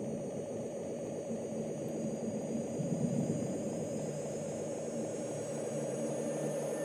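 A low, steady droning rumble from a dark, tense television score, with thin high tones above it that start to rise in pitch near the end.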